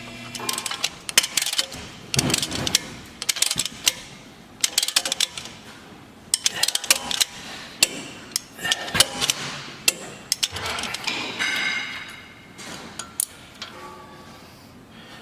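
Irregular metallic clinks, clicks and knocks of hand tools and small steel parts being handled and fitted back onto a truck's front brake and suspension assembly.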